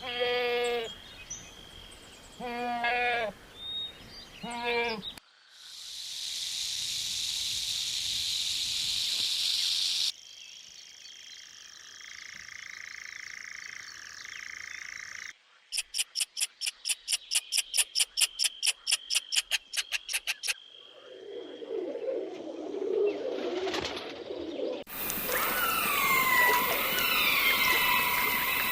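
A series of different animal calls, one after another, changing every few seconds. First come some pitched calls, then a steady high hiss, then a fast pulsing call at about four pulses a second, then a low rough call. Bird chirps gliding downward come near the end.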